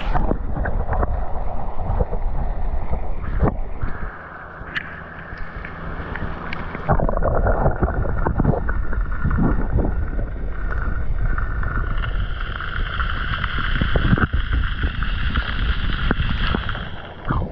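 Wind buffeting the microphone over rushing river water, surging louder at times, with a steady high whine joining in about two-thirds of the way through.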